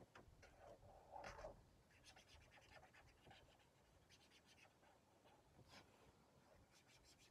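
Faint scratching of a marker tip colouring on paper in quick short strokes.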